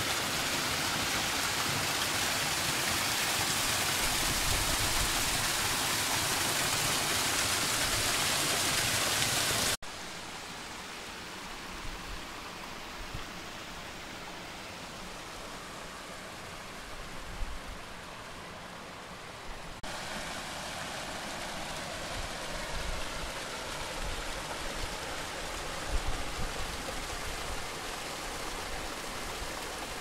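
Steady rushing of a mountain stream and waterfall. It is loud for about the first ten seconds, then drops suddenly to a softer rush, and grows a little louder again about twenty seconds in.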